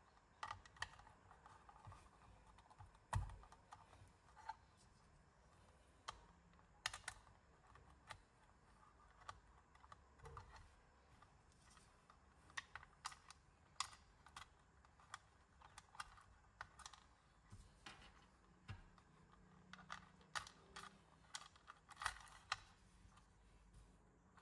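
Irregular small clicks and taps of small metal posts and screws being handled and fitted into a clear plastic radio box, with one louder knock about three seconds in.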